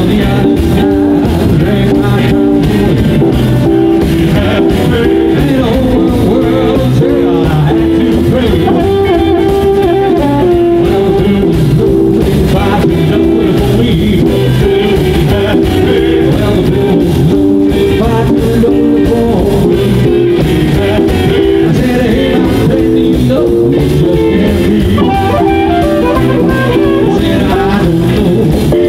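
A live band playing a song on electric guitars, upright double bass and drum kit, with singing.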